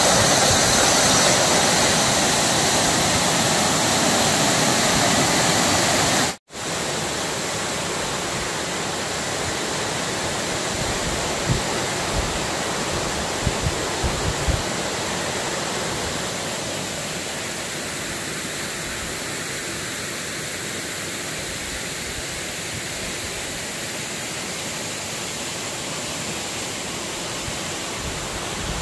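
Waterfall pouring over rock ledges and crashing onto stones: a steady, loud rush of water. It cuts out for a moment about six seconds in, and is a little quieter in the second half.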